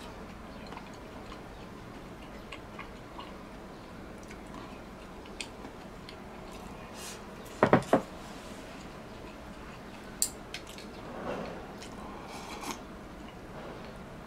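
Tableware sounds during a meal: light clicks of chopsticks against bowls, with one loud double knock a little over halfway through and a sharper click soon after.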